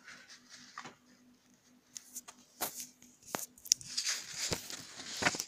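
Handling noises of a printed paper photo being stuck onto a wall: a few sharp clicks and taps about halfway through, then a stretch of paper rustling near the end.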